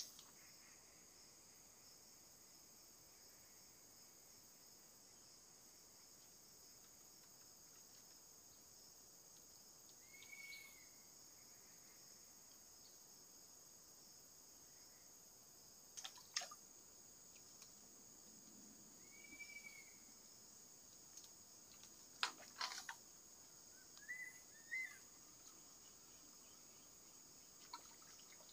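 Faint, steady high-pitched drone of insects, with a few short bird calls and a couple of brief faint clicks.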